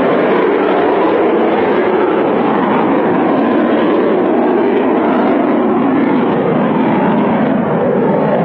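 Sukhoi Su-30 fighter's twin jet engines heard from the ground in low-level display flight: a loud, steady rushing jet noise that slowly shifts in tone as the aircraft manoeuvres.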